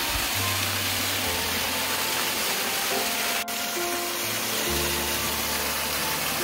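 Small waterfall splashing down a rock cleft: a steady rush of water, with background music of slow held notes laid over it. A momentary break about three and a half seconds in.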